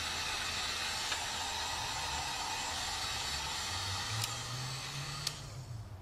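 Hot air gun blowing a steady hiss with a low motor hum, used to dry an acetone coat on a 3D-printed switch handle. It fades out near the end.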